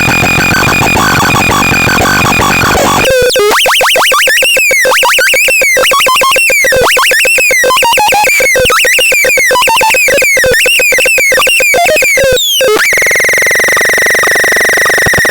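Baltarel Ultra Max electronic sound unit playing its preset tones. A dense buzzing tone switches about three seconds in to rapid repeating chirps that rise and fall. Near the end it changes to a steadier warbling tone.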